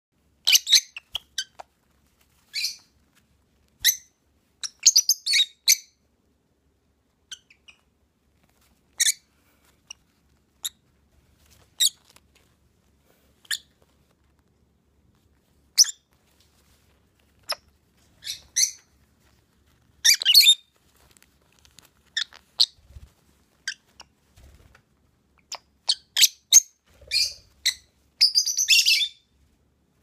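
Pet lovebirds chirping: short, sharp high-pitched calls at irregular gaps, some in quick clusters, with a longer, denser run of chirps near the end.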